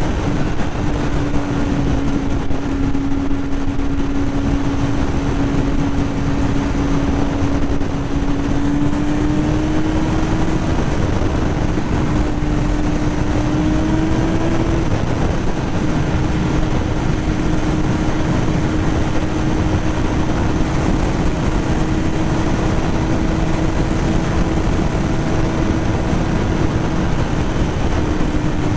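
2005 Yamaha YZF-R6's inline-four engine pulling at a steady freeway cruise, its tone holding even with a slight rise in pitch about ten and fourteen seconds in, under heavy wind rush on the microphone.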